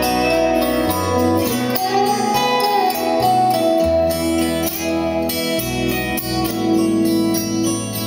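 Instrumental break of a song with held melody notes over a bass line, played through a pair of Triangle Titus 202 bookshelf speakers driven by an Audiolab 8000S amplifier and heard in the room.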